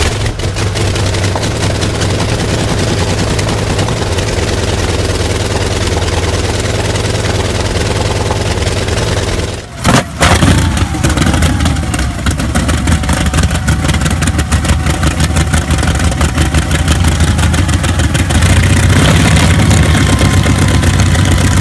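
Large radial aircraft piston engines running loudly on test stands. There are two clips, with a cut about ten seconds in, and the engine gets louder near the end.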